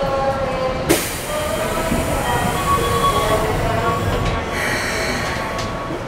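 Keikyu 1500 series commuter car standing at a platform as its side doors slide shut, with a sharp knock about a second in.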